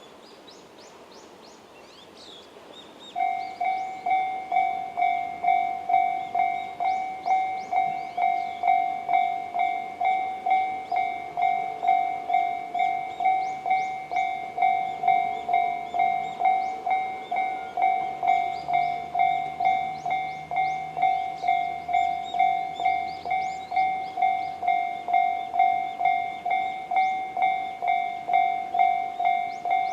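Japanese railway level-crossing alarm, the Tobu-style electronic bell tone known as Tobu sound C, starting about three seconds in. It rings as a steady ding-ding at about two strokes a second, warning that a train is approaching.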